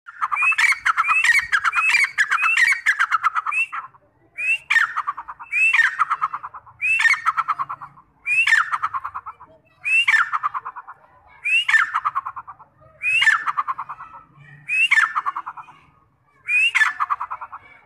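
A teetar (grey francolin) calling loudly over and over. Each phrase opens with a rising note and runs into a quick string of repeated notes. The phrases come back to back for the first four seconds, then settle into a steady rhythm of about one phrase every second and a half.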